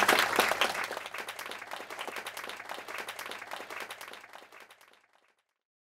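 Audience applauding, loudest at first and fading away until it stops about five seconds in.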